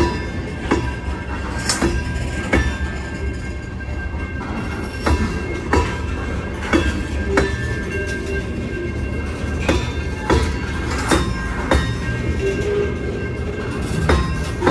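Loaded covered hopper cars of a fast freight train rolling past, a steady low rumble broken by sharp wheel clacks, often in pairs as each truck crosses the rail joints at the level crossing. Faint steady high-pitched tones run underneath.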